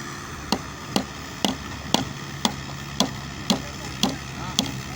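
Repeated sharp strikes, evenly spaced at about two a second, of a hand tool on a hard surface, over a steady low engine hum.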